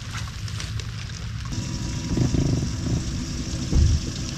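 Bow-mounted electric trolling motor humming steadily, coming in about a third of the way through, over wind rumbling on the microphone, with a dull thump near the end.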